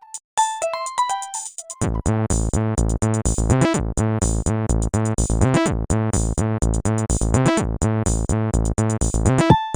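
Nokia 6610 MIDI ringtones: a thin melody of single electronic notes, then about two seconds in a fuller synthesized tune starts, with a steady beat, bass and chords and a sliding note about every two seconds. It stops abruptly just before the end.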